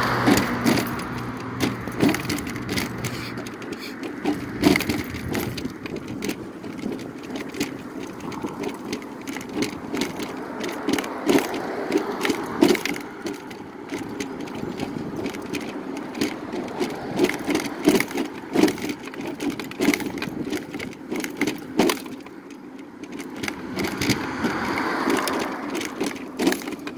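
Electric mobility scooter rolling along a concrete sidewalk, its body and tiller rattling with frequent irregular knocks and clicks as the wheels run over the cracks and slab joints.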